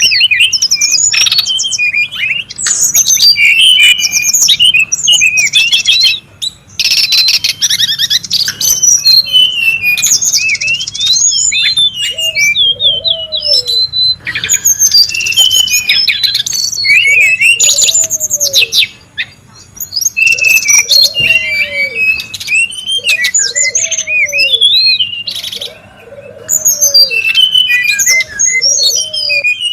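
Brown-chested jungle flycatcher song and calls used as lure and tutoring audio: a dense, busy run of rapid high chirps, trills and twitters with only brief pauses. From about halfway, a lower, arched note comes in and repeats every couple of seconds.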